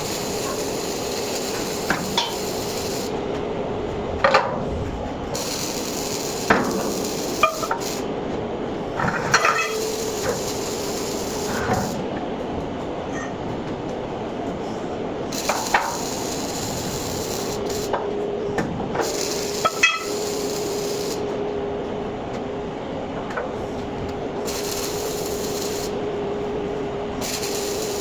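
MIG welding arc crackling in short runs of a few seconds that start and stop, over a steady hum, with scattered metallic knocks.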